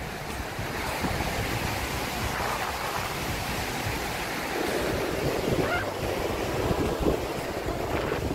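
Steady rush of a fast glacial river running over boulders below, with wind buffeting the microphone.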